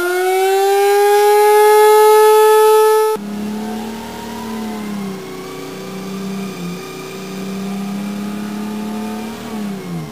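A wind-up siren spins up, its pitch rising and levelling into a loud steady wail, then cuts off abruptly about three seconds in. A lower held tone follows, wavering with a couple of brief dips and falling away near the end.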